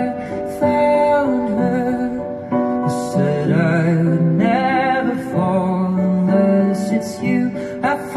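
Background music: a gentle song with a wavering sung melody over piano.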